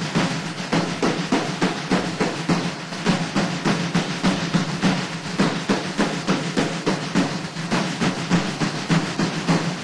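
Military marching drums, snare and bass drums of a Mexican army drum-and-bugle band, playing a steady march beat.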